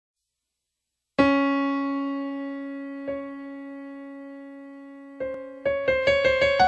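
Piano music: after about a second of silence, one long note sounds and slowly fades, a soft note follows about three seconds in, and near the end a quick run of notes begins.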